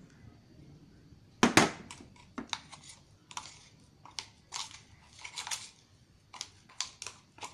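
A utensil stirring slime in a bowl: irregular sticky clicks, squelches and scrapes, the loudest a sharp double knock about one and a half seconds in.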